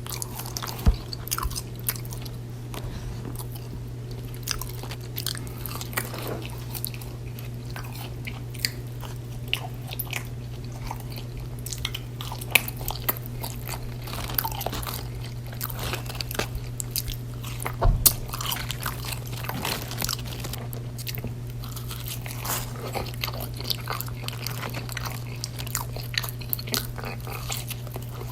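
Close-miked eating of fast food: steady chewing and biting with many small mouth clicks, over a steady low hum. There are two louder knocks, one about a second in and one about two-thirds of the way through.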